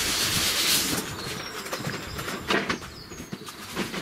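Cardboard rustling and scraping as a large cardboard box is slid out of its outer carton, loudest in the first second, followed by a few dull knocks of the box being handled.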